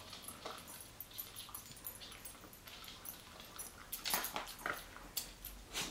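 American Eskimo dog chewing kibble: faint, irregular crunches and clicks, coming thicker about four seconds in and again near the end.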